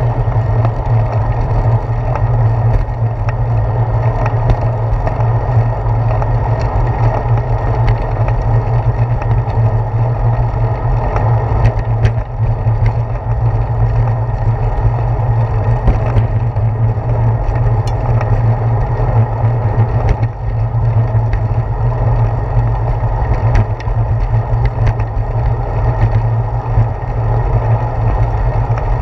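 Steady low rumble of wind and road vibration on a handlebar-mounted action camera on a moving bicycle, with scattered short knocks.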